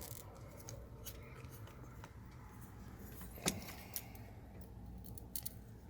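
A few light clicks and small metallic rattles from parts being handled at a van's steering column, with one sharper click about three and a half seconds in, over a low steady hum.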